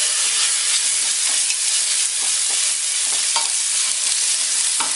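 Chopped vegetables and ginger-garlic paste sizzling steadily in hot oil and ghee on high flame in a non-stick kadai, stirred with a spatula that scrapes the pan a few times.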